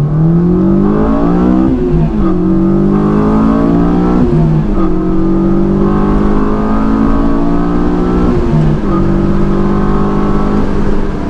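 Honda S2000's 2.2-litre four-cylinder with an aFe Takeda cold-air intake accelerating hard through the gears: the engine note climbs, drops at three upshifts about 2, 4.5 and 8.5 seconds in, and climbs again each time. The intake has a throaty note, with VTEC cracking in every gear.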